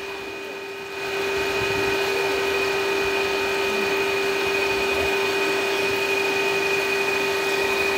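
Steady mechanical hum with a few constant tones over a hiss, dipping slightly in the first second, as of a small motor running.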